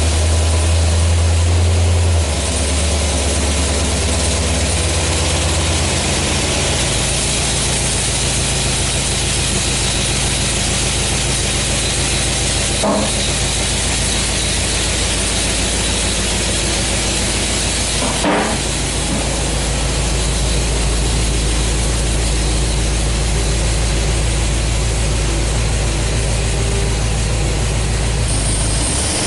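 V8 engine of a 1976 Corvette idling on a Holley Sniper Quadrajet EFI unit. The idle speed steps down about two seconds in and again about six seconds in, then holds steady.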